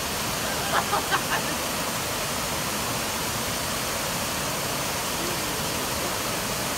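Steady rushing of an outdoor cascade fountain, water falling down a wall and over stone steps. A few brief higher sounds come about a second in.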